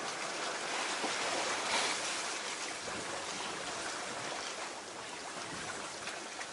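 Steady rush of water and wind around a sailboat under way in about 15 knots of wind, swelling briefly about two seconds in.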